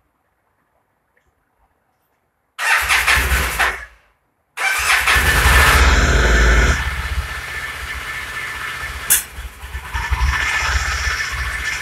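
Yamaha TDM850 parallel-twin engine being started: it fires and runs for about a second and a half, stops, then catches again and keeps running. It runs fast at first, then drops to a lower idle with one sharp pop about nine seconds in, the kind of sneeze back through the carburettor the owner is showing.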